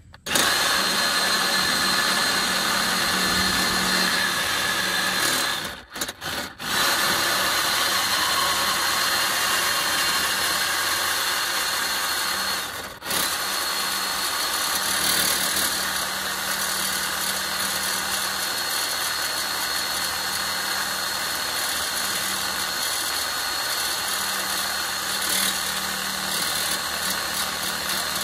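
Corded reciprocating saw cutting through a steel exhaust pipe, running steadily with short stops about six seconds in and again about thirteen seconds in.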